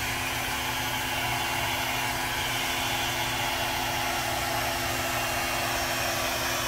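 Handheld hair dryer running steadily: a constant rush of air with a low, even motor hum, blowing wet acrylic paint across a canvas.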